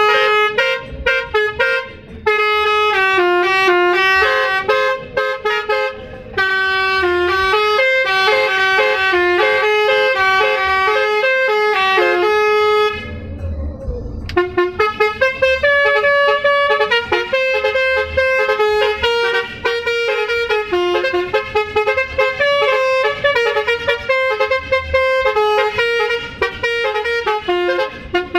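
Aneka Jaya bus's Basuri telolet horn, a multi-tone air horn, playing a fast melody of stepped notes. It breaks off briefly about halfway through under a low rumble, then plays on.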